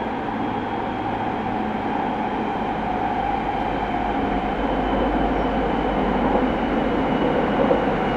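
Running sound of a Tokyo Waterfront Area Rapid Transit 70-000 series electric train, heard from inside the car: a steady rumble of wheels and motors, getting slightly louder as the train runs between stations.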